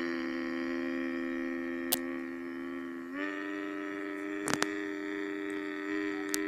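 A boy's voice imitating a monster truck engine: a steady hum held on one pitch, stepping up slightly about three seconds in, with a few brief clicks.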